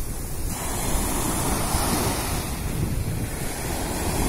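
Sea waves breaking and washing up the sand, with a wave's rush swelling about half a second in. Wind rumbles on the microphone underneath.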